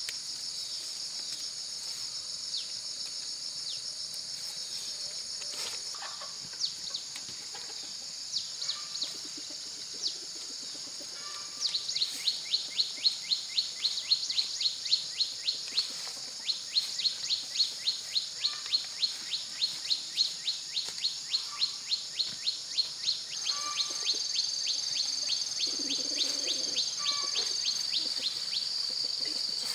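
Steady high-pitched insect chorus, with a fast run of short falling chirps, about four a second, that starts about a third of the way in and keeps going.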